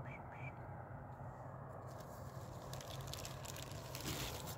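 Faint crackling rustle, like dry leaves being stepped through or handled, building in the second half and loudest near the end, over a low steady hum; a couple of short rising chirps at the very start.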